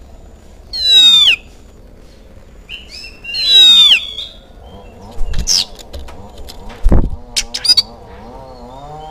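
Oriental magpie-robin singing: two loud, clear whistles that fall in pitch, about a second and three and a half seconds in, then a run of quicker chirps and short notes. A dull low thump comes about seven seconds in.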